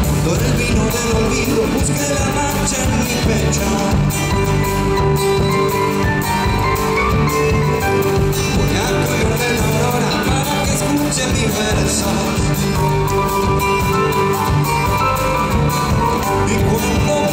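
Live band playing Argentine folk music, with a male voice singing at the microphone over it.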